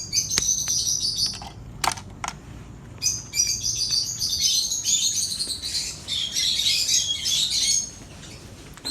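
A flock of caged lovebirds chattering with dense high chirps, a short burst at first and then steady chirping for about five seconds. A couple of sharp clicks come about two seconds in.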